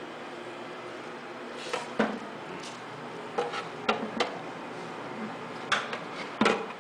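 Metal parts of a bean-slurry grinding machine, a perforated filter screen and a metal bowl, knocking and clinking as they are taken out and handled for cleaning: a scatter of sharp knocks, the loudest about two seconds in and near the end, over a steady hum.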